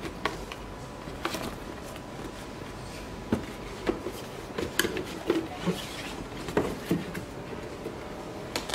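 Corrugated cardboard mailer boxes being handled and folded: scattered taps, knocks and scrapes of cardboard flaps and walls, a few at first and then in quicker succession through the middle.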